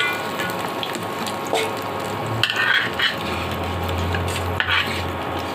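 Oil sizzling in an iron kadai while fried bitter gourd pieces are scraped up and lifted out with a metal spatula, with a few short scraping strokes against the pan. A low hum comes in about halfway through.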